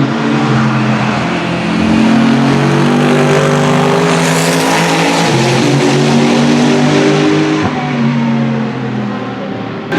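Several GT racing cars passing one after another at speed, their engine notes overlapping and rising and falling as they go by. A louder hiss from tyres builds up about halfway through and fades again.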